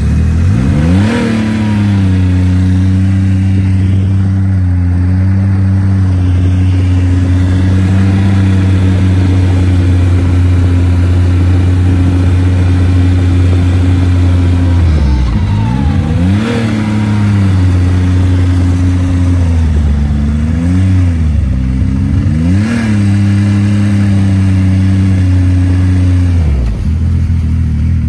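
Snowmobile engine running under way, heard from on the sled. The engine note climbs about a second in and holds steady, dips and picks back up twice midway as the rider eases off and accelerates, and falls away near the end as the sled slows.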